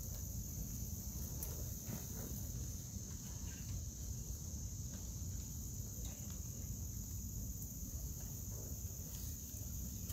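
Steady, high-pitched insect chorus of late-summer crickets and similar insects, with a low rumble underneath.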